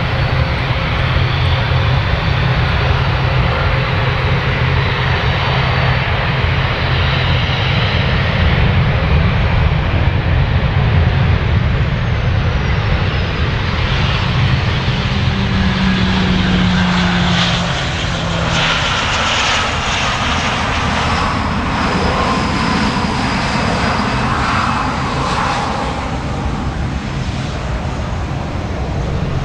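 Boeing 737-800 airliner's turbofan jet engines running steadily as it touches down and rolls out along the runway. In the second half, whining tones fall in pitch as the jet slows.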